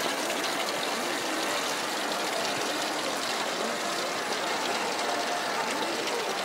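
Steady babble of a large crowd of visitors: many indistinct voices blending into a constant hiss, with no single voice standing out.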